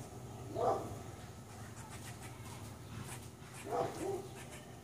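A dog barking at squirrels: one bark about half a second in, then two more close together near the end.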